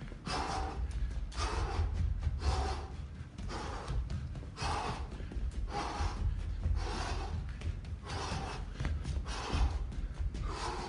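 A man breathing hard while shadow boxing, with a short, sharp exhalation about once a second. Under it runs a steady low rumble.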